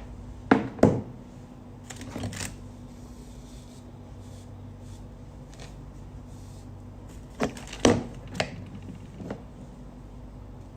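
A few sharp clicks and knocks in two clusters, about half a second in and again near the eight-second mark, over a steady low electrical hum.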